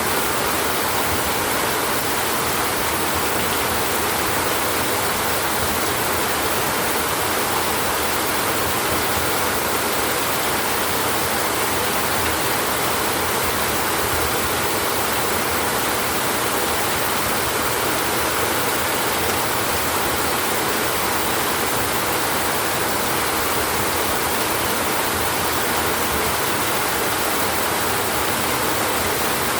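Rain falling steadily on a tin roof: an even, unbroken hiss with no thunderclaps.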